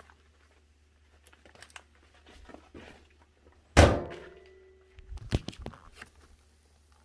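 A microwave oven door opening or shutting with one loud thunk about four seconds in, followed by a brief ringing tone, then a few softer knocks.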